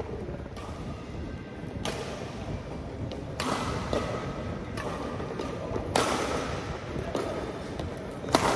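Badminton rackets striking a shuttlecock in a rally, sharp smacks about every one to two seconds, each with a short echo from the hall.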